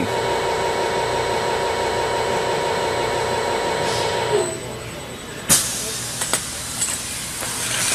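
Automated circle welding machine's motors and blower running with a steady whining drone as it cycles back to its home position. About four seconds in the drone winds down with a falling pitch, and a clunk follows a second later, then a few light clicks as the machine comes to rest at home.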